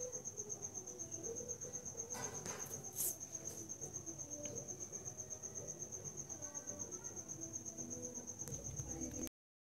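A cricket chirping in a fast, even, high-pitched trill that goes on steadily, then cuts off suddenly near the end.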